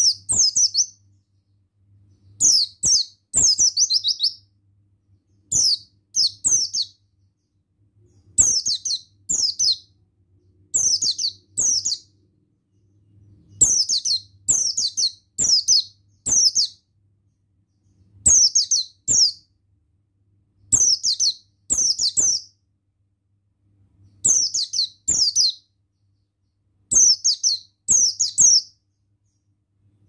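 White-eye (pleci buxtoni) singing in short bursts of high, quick downward-sweeping chirps, two or three notes at a time, every two to three seconds, over a faint low hum.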